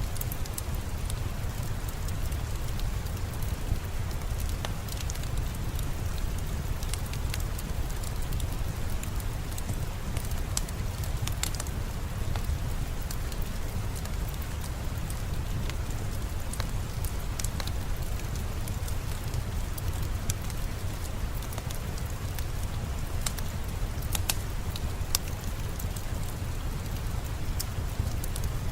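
Steady falling rain with a low rumble, mixed with the scattered small pops and crackles of a fireplace fire.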